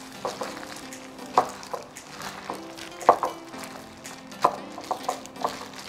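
A gloved hand squeezing and turning wet chive-and-shrimp pancake batter in a glass bowl, with irregular squelches every second or so. Soft background music with held notes plays underneath.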